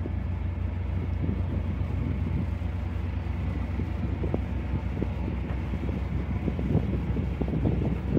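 Narrowboat's engine idling steadily with a low, even pulse, the boat's engine kept running while it holds station.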